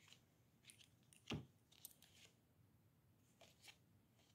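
Near silence broken by a few faint clicks and one soft tap about a second and a half in: tarot cards being handled and laid down.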